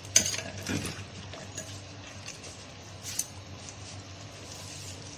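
A spoon stirring and scraping a thick curry in a clay pot, with a sharp knock just after the start and a few strokes in the first second, then mostly a low steady hum with a faint clink about three seconds in.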